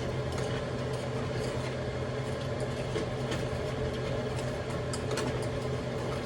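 Steady machine hum, like a running kitchen appliance, with a few faint light clicks over it.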